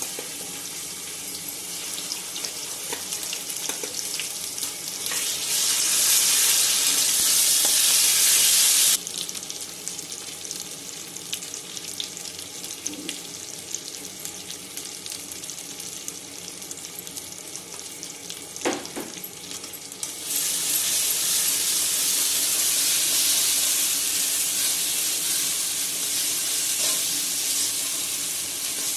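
Potatoes and spice paste sizzling in hot mustard oil in a kadai as they fry. The sizzle grows much louder about five seconds in, drops off abruptly a few seconds later, then swells loud again about two-thirds of the way through, with a single sharp knock just before.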